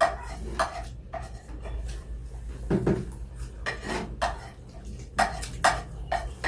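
Cutlery clinking against plates and bowls during a meal, in a scatter of short, sharp clicks, with one duller knock about three seconds in.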